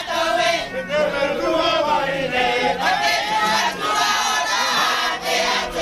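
A group of voices singing in chorus without instruments, in a chanting style, sustained without a break.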